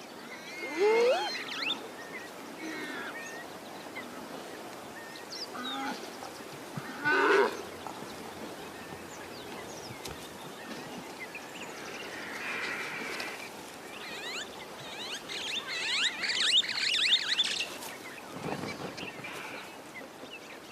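Warthog squealing in distress while a lioness eats it alive: separate high, wavering cries that bend up and down in pitch, one about a second in and another around seven seconds, then a dense run of squeals near the end.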